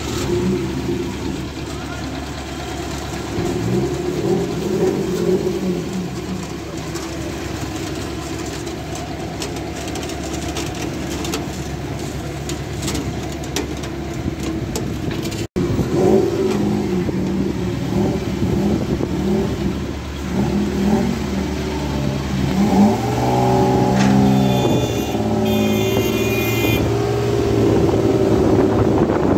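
Vehicle engines running amid street traffic, then, after a cut, a car engine revving up and down in pitch as the car is driven up onto a flatbed loader truck.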